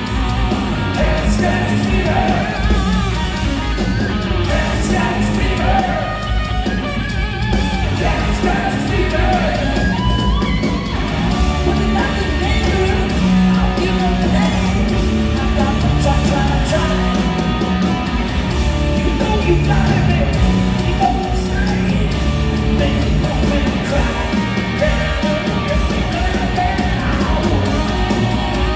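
Live hard rock band playing loud and without a break: distorted electric guitars, bass and drums with sung vocals, heard through the concert PA from the audience.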